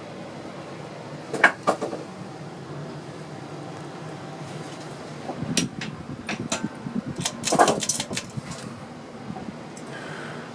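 Emerson 54-inch plastic ceiling fan running with a steady hum. There are a couple of sharp clicks about a second and a half in and a longer flurry of clicks and knocks midway through.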